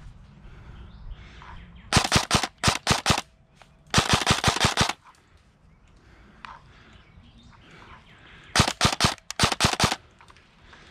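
Airsoft rifle firing in rapid full-auto strings. Several short bursts come about two seconds in, a longer burst at about four seconds, and another run of short bursts near the end.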